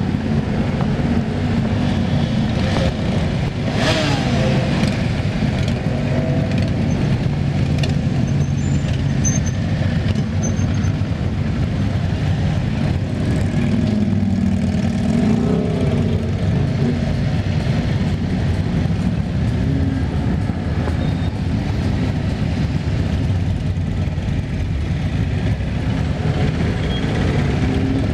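Steady rumble of road traffic, with a few engine notes rising and falling in pitch as vehicles pass.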